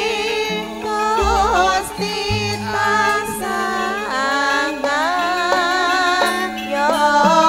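A woman singing a Javanese langgam melody with wavering, sliding held notes over campursari band accompaniment with a deep bass line.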